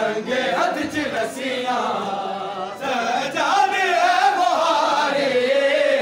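Group of men chanting a noha, a Shia mourning lament, together in a wavering, sustained melody.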